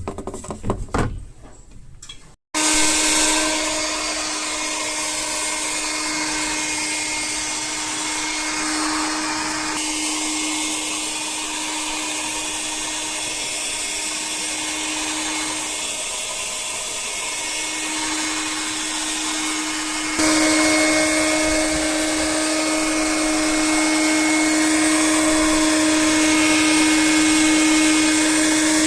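A few clicks, then a small motor or blower starts abruptly and runs steadily with a constant hum. It gets louder about twenty seconds in.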